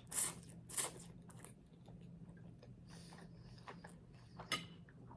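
A person chewing a mouthful of food close to the microphone, with crisp, crunchy chews: three in quick succession in the first second and a half, softer mouth sounds after, and another crunch about four and a half seconds in. The meal is spaghetti with crunchy garlic bread.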